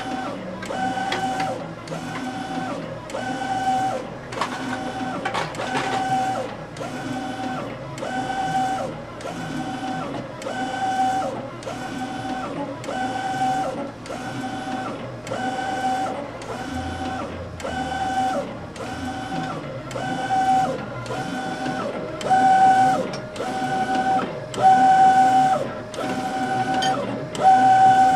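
Direct-to-garment inkjet printer printing onto T-shirts: the print-head carriage sweeps back and forth with a short motor whine on each pass, a little more than one pass a second, in a steady rhythm.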